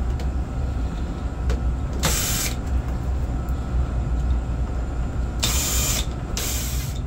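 Cordless drill-driver running in three short bursts, backing out the screws that hold a black plastic cover on an electrical box, over a steady low hum.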